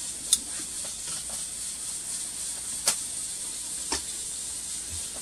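Kitchen handling sounds: a few light sharp clicks and knocks over a steady faint hiss, as raw chicken pieces are arranged in a metal roasting pan.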